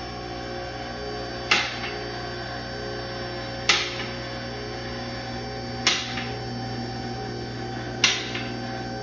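Rotary two-post hydraulic car lift rising, its electric pump motor running with a steady hum. Four sharp clanks, about two seconds apart, are the carriage safety locks dropping past each latch position as the arms climb.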